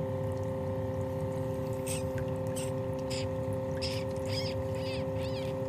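Bathtub bubble jets running: a steady motor hum with air bubbling through the bathwater. Short, light wet sounds come every half second or so over the second half.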